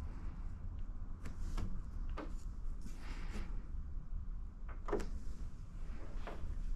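Fingers working a piece of paint protection film at a car hood's edge: several faint, short rubbing and tapping sounds over a low steady hum.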